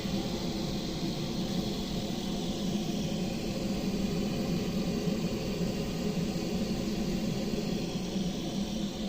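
Repaired gas boiler fan running steadily: an even hum with a rush of air, working again.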